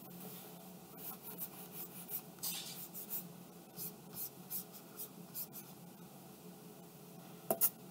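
Quiet room tone with a low steady hum and faint, irregular scratching and rustling, with a short louder rustle near the end.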